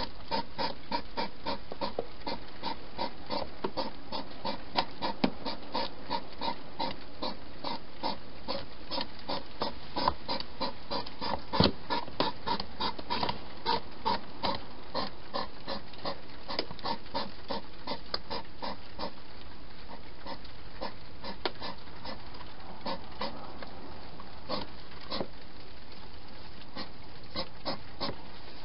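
Wild hedgehogs chewing food from bowls inside a clear plastic feeding box: fast smacking clicks at about five a second, with a louder knock about twelve seconds in. The chewing thins out for a few seconds past the middle and then starts again near the end.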